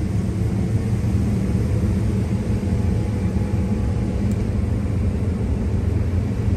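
New Holland combine harvester running, a steady low drone with no change in pitch or level.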